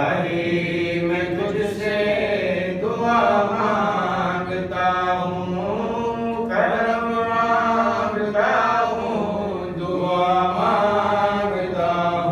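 A man chanting a noha, a mournful lament, into a microphone in long, drawn-out phrases that bend in pitch.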